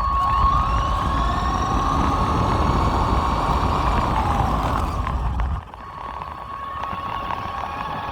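Radio-controlled truck's motor whining as it drives, its pitch rising and falling over a steady high whine, with a low rumble that drops away about five and a half seconds in.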